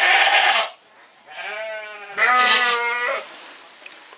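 A nanny goat in labour bleating loudly while straining to give birth: one call breaks off under a second in, then a longer, quavering bleat lasts about two seconds.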